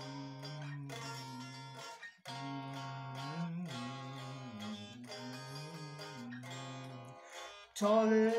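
Electric guitar playing a country song's intro: held chords that change every second or two, with a brief break about two seconds in. It comes in louder near the end.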